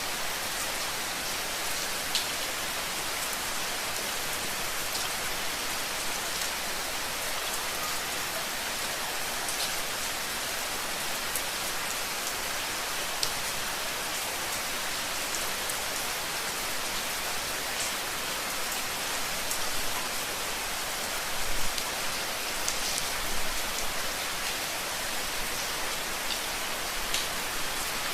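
Steady rain falling and hitting a surface, with scattered individual drops ticking through the hiss. A few slightly louder gusts come about two-thirds of the way in.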